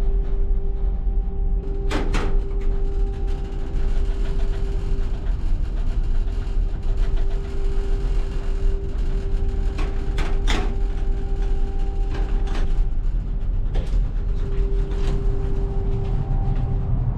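Steady low rumble and hum of a large ferry's engines and hull vibration heard from inside a cabin, with several sharp knocks and clicks of doors and latches: one about two seconds in, a cluster near the middle and a few more later.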